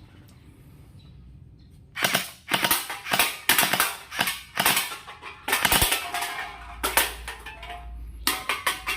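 Toy water gel blaster firing a quick, irregular run of sharp shots, starting about two seconds in.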